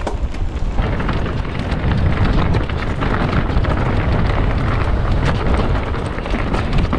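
Mountain bike rolling down a dirt trail: wind buffeting the camera microphone with a heavy low rumble, tyres running over dirt and stones, and many small clicks and rattles from the bike.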